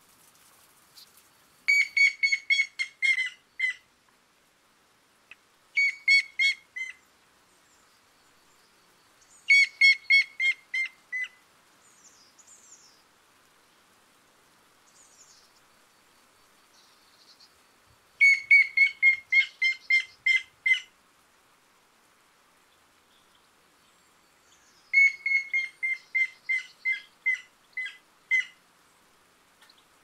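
Male grey-headed woodpecker singing: five runs of clear, evenly spaced whistled notes, each run falling slightly in pitch and slowing toward its end.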